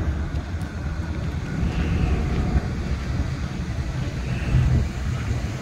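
Engine of a vintage hot rod sedan running as it drives slowly up and approaches, a low uneven rumble.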